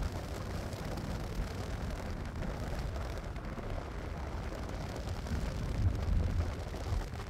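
Steady low rumble of a car driving on a highway, heard from inside the cabin, swelling briefly about six seconds in.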